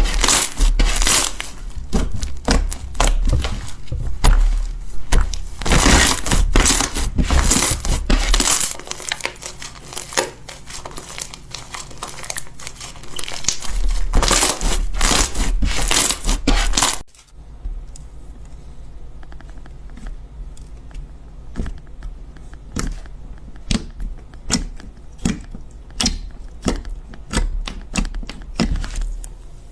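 Slime being squeezed and poked, making dense crackling and popping. About two-thirds of the way through the sound cuts off suddenly and is replaced by quieter, scattered clicks and pops.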